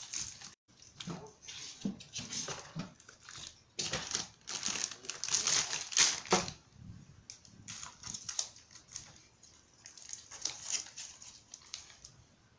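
Plastic snack packaging rustling and crinkling in irregular bursts as it is handled, loudest about halfway through.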